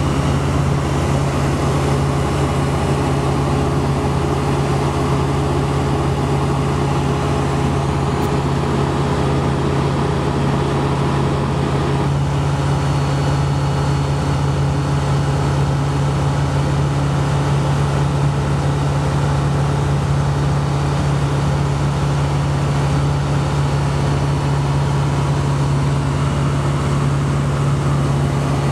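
Ultralight aircraft's engine and propeller heard from inside the cockpit in cruise flight: a loud, steady drone at one low pitch.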